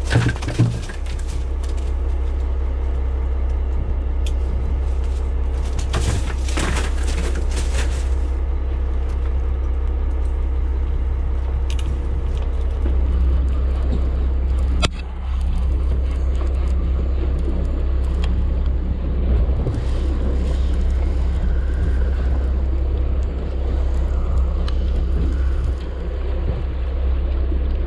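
Steady low rumble aboard a fishing boat at sea, with a stretch of rustling handling noise about six seconds in and a few sharp clicks and knocks later on.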